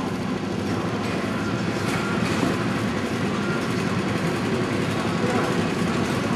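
Several rental go-kart engines running together at a steady idle, a dense, continuous mechanical drone.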